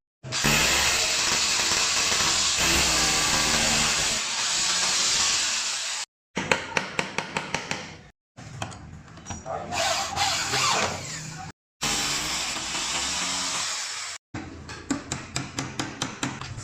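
Woodworking tools in a run of short edited shots: a power tool running steadily on wood, alternating with runs of quick, regular strokes at about five a second, each shot ending in a sudden cut.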